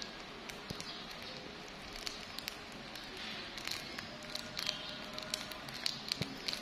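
Irregular light crackling and clicking from a small LED remote control being handled and pressed through the clear plastic wrapper it is still sealed in.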